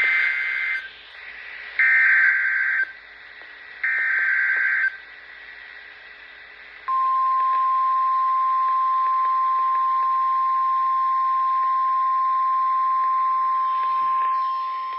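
Emergency Alert System SAME data header on NOAA Weather Radio: three bursts of warbling digital tones, each about a second long and about two seconds apart. About seven seconds in, the steady single-pitched weather radio warning alarm tone begins and holds. Together they announce a severe thunderstorm warning.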